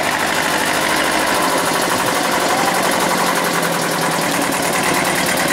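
Vintage tractor engine running at low revs as the tractor drives slowly, a steady rapid putter.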